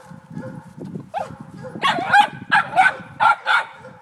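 Two small hunting dogs barking up a tree trunk at something in the tree: a quick run of about six sharp barks, starting about two seconds in.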